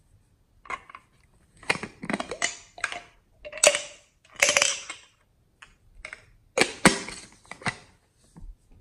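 Hard plastic toy containers being handled: a run of clicks and short scraping rattles in bursts, the loudest a sharp click a little before the end.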